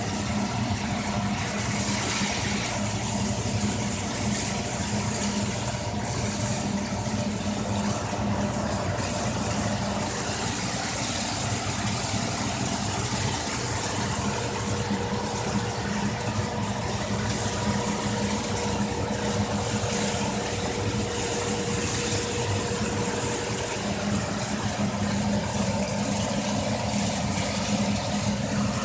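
Steady hum of machinery running, with a constant hiss over it. A faint thin tone joins in for several seconds in the middle.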